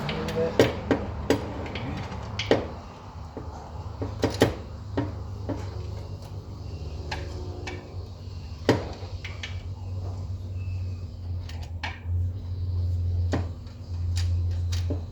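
Hand tools clinking and knocking on metal, in scattered irregular strikes, over a steady low hum that swells near the end.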